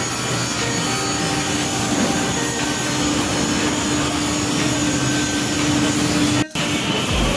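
Loud, steady running of an industrial saw cutting board or countertop, together with its dust extraction, with a steady hum joining about two seconds in. The sound drops out briefly near the end.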